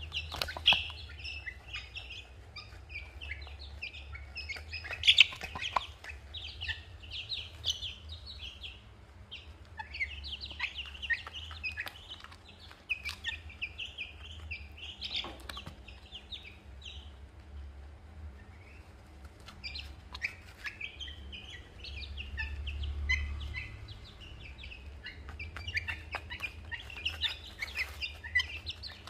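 Young chicks and ducklings peeping over and over in short high calls, thinning out briefly past the middle, with scattered sharp taps of beaks pecking feed from a plastic dish and a steady low hum underneath.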